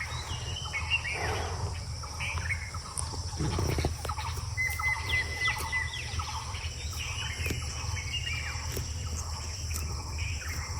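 Rural outdoor ambience: birds chirping in many short calls, one of them holding a thin whistled note near the middle, over a steady high insect drone and a low steady rumble.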